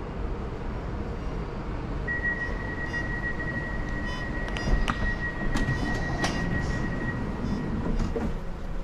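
Glacier Express train running with a steady low rumble. A single high steady tone sounds for about five seconds starting about two seconds in, and a few sharp clicks come near the middle.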